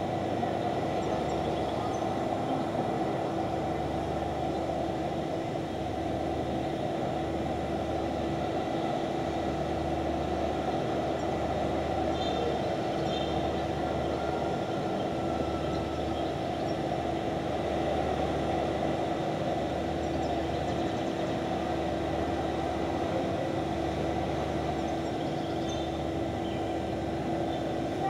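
Steady city background noise from a high balcony: a continuous mechanical hum with a low throb that pulses on and off every couple of seconds, and faint high chirps twice.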